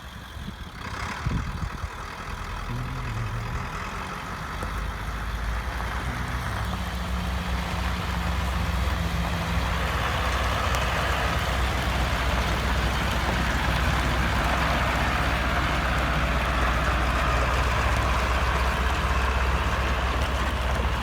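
Truck engine running, growing louder over the first ten seconds or so and then holding steady.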